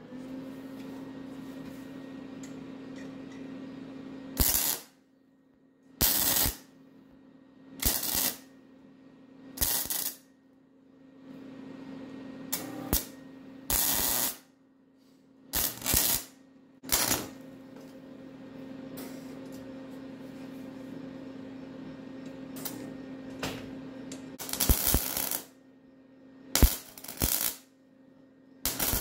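Electric arc welder laying a series of short welds on a steel cart bracket: about a dozen brief bursts of sputtering arc crackle, each under a second, with a steady low hum in the pauses between.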